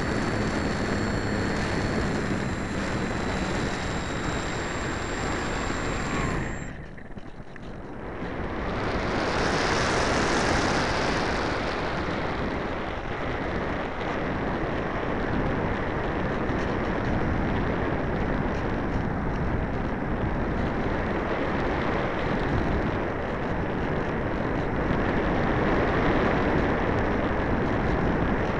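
Airflow rushing over the onboard camera microphone of an RC Easy Glider in flight. The electric motor's faint steady whine cuts off about six seconds in, and the glider then flies on unpowered, with the wind noise swelling again a few seconds later.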